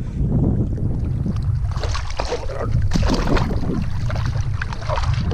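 Wind buffeting the microphone over water splashing in the shallows as a hooked queenfish is fought close in; the splashing is busiest about two to three seconds in.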